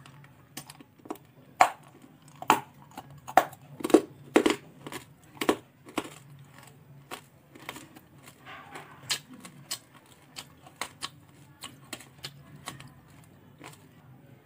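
Close-miked chewing of candy with the mouth closed: irregular sharp, wet clicks and crunches, loudest through the first six seconds, then fainter and more scattered.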